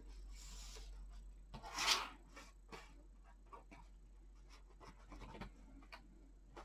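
Paper pages of a spiral-bound planner being flipped and handled, with soft rustling and a louder rustle of paper about two seconds in, plus scattered light taps and clicks.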